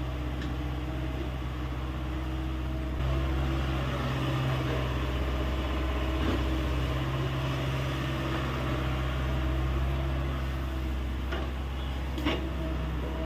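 Hyundai 85A excavator's diesel engine running steadily, getting louder about three seconds in as it works harder. A sharp knock comes near the end.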